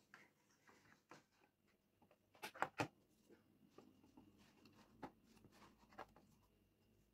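Faint, scattered clicks and taps of small plastic parts being handled, with a quick cluster of sharper clicks about two and a half seconds in.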